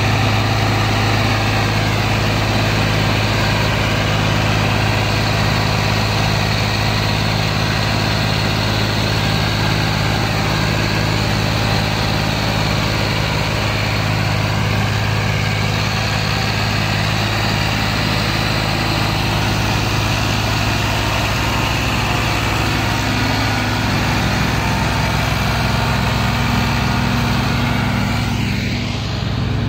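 Diesel farm tractor engine running steadily as it hauls a heavily loaded sugarcane trolley, with a strong, even low hum.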